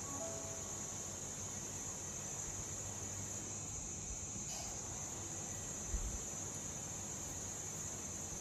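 Steady high-pitched insect chirring, with one soft low thump about six seconds in.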